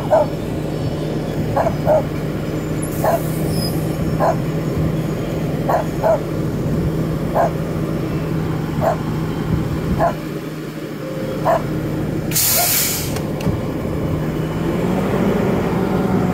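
Side-loader garbage truck's diesel engine idling steadily while a dog barks in short, sharp barks about every second. A loud air-brake hiss lasts about a second around 12 seconds in.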